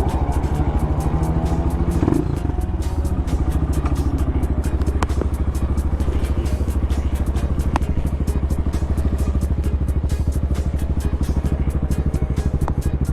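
Bashan 250 dirt bike engine running under way, with a brief dip and change in pitch about two seconds in, then steady cruising.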